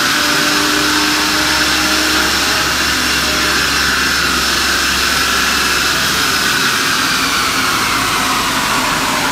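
2011 BMW 328xi's 3.0-litre straight-six running hard on a Dynojet chassis dynamometer, its tyres spinning the dyno roller, in a loud steady run. The low rumble drops away about two-thirds of the way through, and the higher whine sags a little in pitch near the end.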